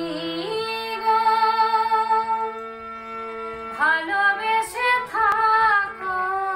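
A woman singing a Bengali folk song to harmonium and violin accompaniment: long held notes, then a quicker phrase with bending, wavering pitches about four seconds in, over the harmonium's steady tones.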